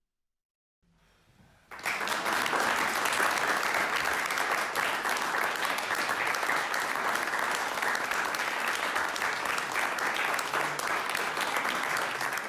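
Audience applauding, breaking out about two seconds in after a brief silence and then holding steady.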